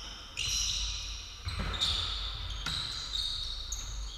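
Sports shoes squeaking on an indoor court floor: several short high squeaks in quick succession, some over dull thuds of players' footwork.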